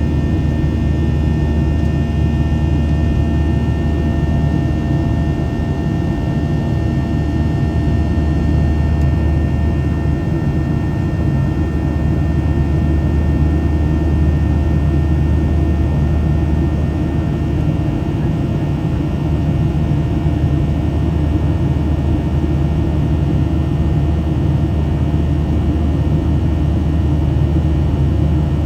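Boeing 737-700 cabin noise in the climb: the CFM56-7B jet engines give a steady, loud rumble with several steady whining tones over it.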